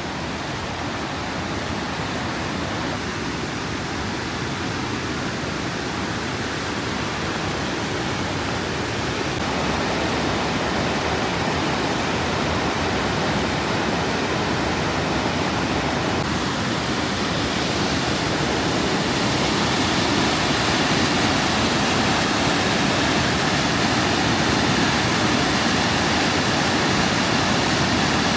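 Rushing water of a waterfall and creek: a steady, even noise that grows gradually louder.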